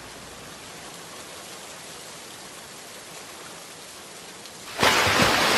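Rain-like rushing hiss from a logo sound effect, holding steady at a low level, then surging back suddenly and loudly near the end with a brief low rumble.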